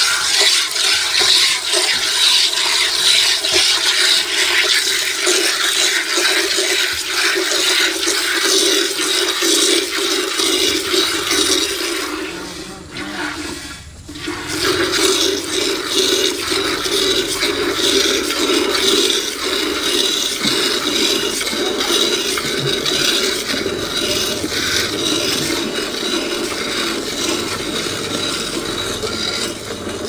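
Cow being milked by hand: streams of milk squirting into an aluminium pail already part-full of milk, making a steady hissing splash. It fades briefly about halfway through, then picks up again.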